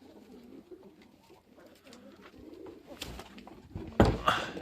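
Domestic pigeons cooing, with two sudden loud noisy rustles about three and four seconds in, the second the loudest.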